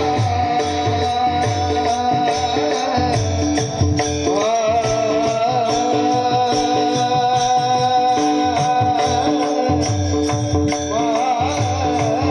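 Devotional song in the Marathi Varkari style: a voice sings long, ornamented, wavering phrases over a steady harmonium-like drone. A drum and jingling hand cymbals keep a fast, even beat underneath.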